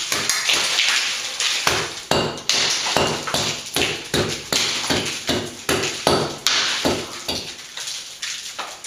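A hand tool knocking and chipping at a bare cement slab ceiling: a steady run of sharp knocks, about two to three a second, each ringing briefly.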